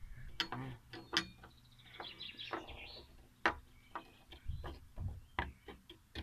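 A glass stirring rod clicks and scrapes against a small glass dish as it stirs a thick permanganate and sulfuric acid paste. The sharp clicks come at irregular intervals, the loudest about three and a half seconds in. Birds chirp in the background.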